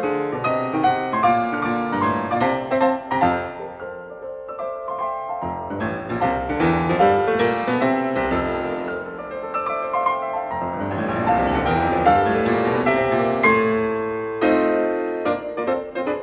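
Background piano music: a continuous flow of notes, some played as chords.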